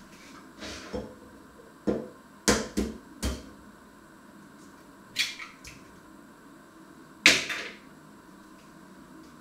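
A run of sharp knocks and clatter, about eight in all and spaced unevenly, most of them in the first three and a half seconds, with the loudest about seven seconds in.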